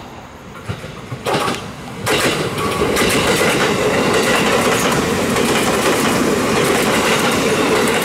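JR Kyushu 787 series limited express electric train passing through the station at speed without stopping. It grows louder over the first two seconds, then gives a steady loud rush of wheels on rail with rapid clickety-clack over the rail joints.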